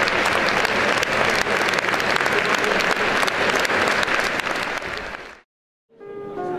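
Concert hall audience applauding, many hands clapping steadily. The applause fades out about five seconds in, and after a moment of silence music starts near the end.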